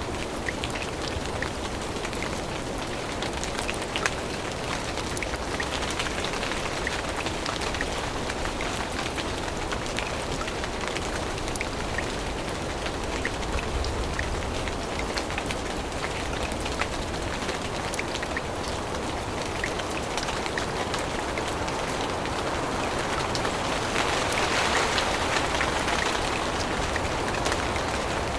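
Steady rain falling on forest leaves, with many separate drops tapping close by; the wash of rain swells a little near the end.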